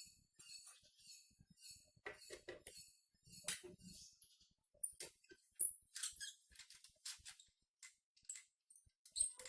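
Scattered light metallic clicks and clinks of hand tools being handled, as work begins on taking apart a scooter's CVT.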